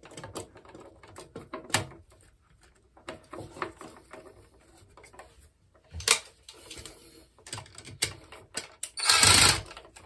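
Scattered clicks, taps and rattles of a plastic GFCI outlet and its wires being handled at an open metal wall box. A short, loud rustling scrape comes near the end.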